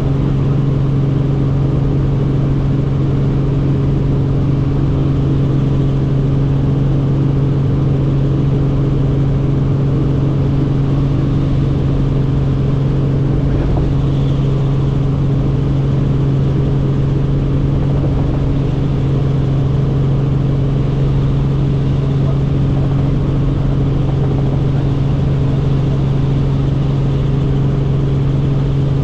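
Helicopter in steady cruise flight: a constant loud drone of rotors and engine, with a steady low hum and rumble that do not change.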